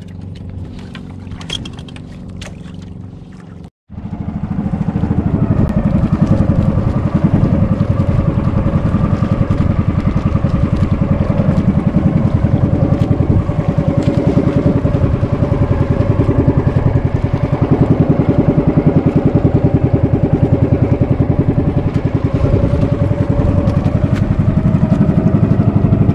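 Engine of an outrigger fishing boat (bangka) running steadily under way, with a rapid, even pulse. It starts after a short quieter stretch with a few knocks about four seconds in.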